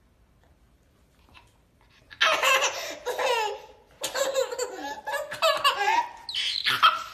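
Toddler laughing hard: three long, high-pitched bouts of giggling and squealing, starting about two seconds in.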